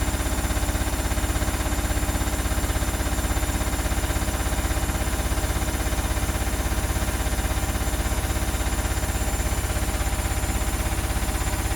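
Electrolux EW1057F front-loading washing machine spinning its drum in the interim spin, a fast, even rhythmic vibration with a heavy low hum. The drum is very unbalanced.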